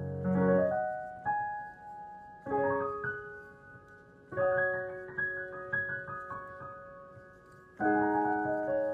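Slow piano music: chords and notes struck and left to ring out and fade.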